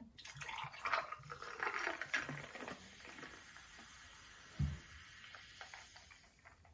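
Cola being poured into a cup, a crackling, fizzing hiss that starts suddenly, is busiest for the first few seconds and then dies away as the bubbles settle, with one dull knock midway.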